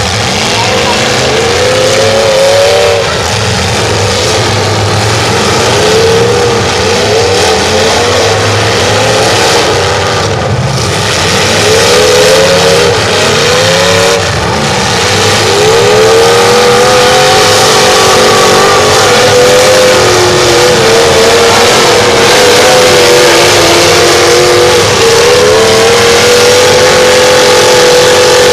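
Several demolition-derby cars' engines revving hard, their pitch surging up and down over and over. In the second half one engine is held at a high, fairly steady rev.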